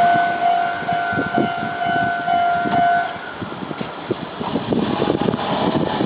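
Japanese railway level-crossing warning bell ringing in a steady repeating electronic tone, cutting off about three seconds in as the crossing clears. Rumble and scattered clattering from the departing train continue underneath.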